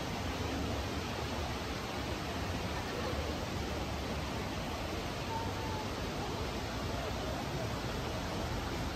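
Steady rushing outdoor noise, an even hiss with some low rumble and no distinct events.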